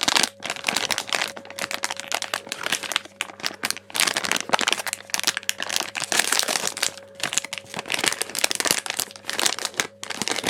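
Plastic packaging crinkling and crackling in irregular bursts as a toy is handled and unwrapped.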